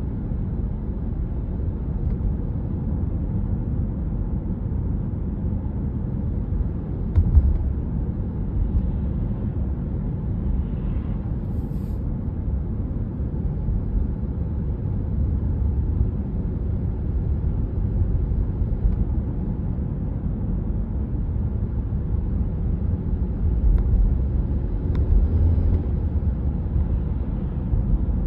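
Steady low rumble of a car being driven, engine and road noise, with a short bump about seven seconds in.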